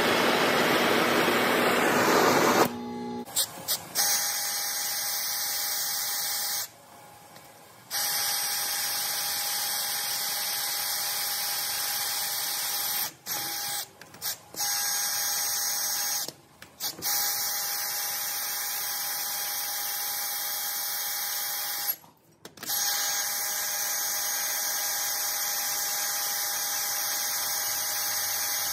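An oxy-acetylene torch hisses for about two and a half seconds. Then a handheld power drill runs steadily, boring a hole through a forged steel bar clamped in a vise, stopping briefly three or four times when the trigger is let off.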